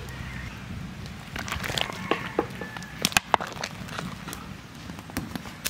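Irregular crackles and sharp clicks, most between about one and four seconds in, around a pot of vegetable dal boiling and being stirred with a ladle. A low hum fades out in the first half second.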